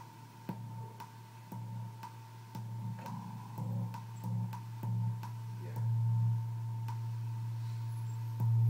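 Knas Ekdahl Moisturizer spring reverb sounding a low electronic drone that pulses and swells louder as its knobs are turned, over a steady thin high tone and faint ticks about twice a second.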